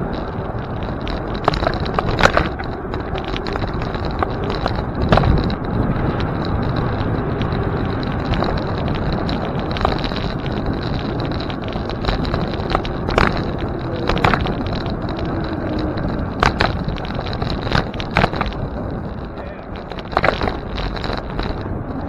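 Bicycle being ridden: a steady rushing noise of wind and rolling, broken by irregular sharp clicks and rattles as the bike goes over bumps.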